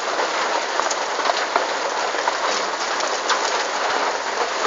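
Steady rain falling on puddled ground: an even hiss with scattered drip ticks.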